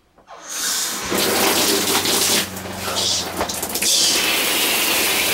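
Water turned on at the shower valve and spraying from a new Oxygenics RV shower head, building up about a second in to a steady, strong rushing hiss, with a low hum underneath. The strong spray is the new head's much better water pressure.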